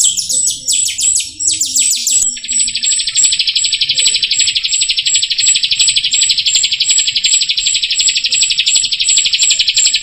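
Jalak rio starling singing: a run of quick, sharp falling chirps, then from about two seconds in a continuous dense buzzy trill with a high whistled note repeated about three times a second.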